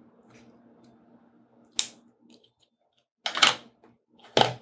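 Small clicks and knocks of hand tools being handled at a fly-tying bench: a single sharp click about two seconds in, then two louder knocks about a second apart near the end.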